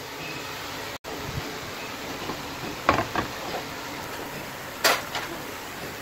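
Whole spices frying in hot oil in a pan: a steady sizzling hiss with a few sharp clicks, the loudest about three and five seconds in.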